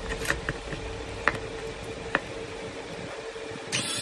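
Light clicks and taps of pliers and a small metal plate being handled over a faint steady hum. Near the end an electric drill comes in with a short, loud burst as its bit bites into the thin metal plate.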